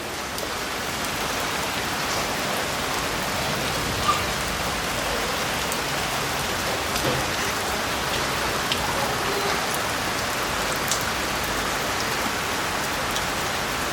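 Steady rain falling, with scattered individual drops tapping on surfaces; one sharper drip about four seconds in.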